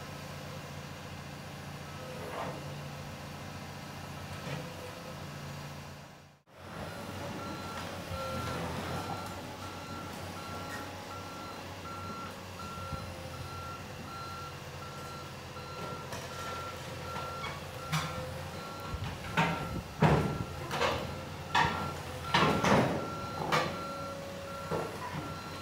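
Komatsu PC228US excavator's diesel engine running as it drives onto a low-loader trailer, with its travel alarm beeping steadily from about a third of the way in. Near the end come a series of loud clanks as the steel tracks climb the steel ramps onto the trailer deck.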